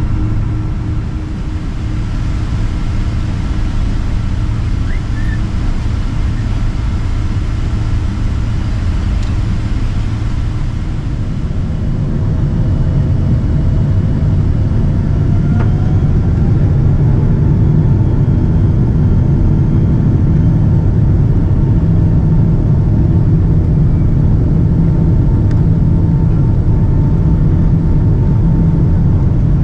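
Boeing 777-200ER engines heard from inside the cabin: a steady low rumble, then about halfway through the engines spool up. A whine glides up in pitch and the rumble grows louder, then holds at the higher setting.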